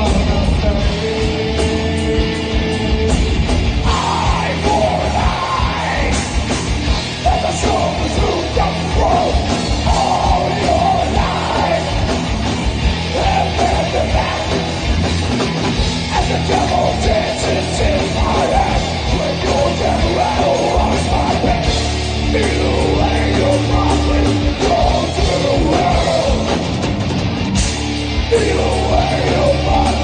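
Live rock band playing: a singer's shouted vocals over electric guitars and drum kit.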